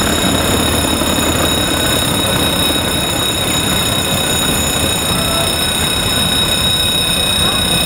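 Diesel locomotive hauling passenger coaches past: engine running and wheels rolling on the rails as a steady noise, with a constant high-pitched tone over it.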